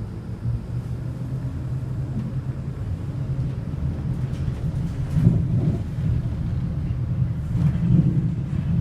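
City bus driving, heard from inside: a steady low rumble of engine and road that grows slightly louder, with a couple of brief louder jolts about five seconds in and near the end.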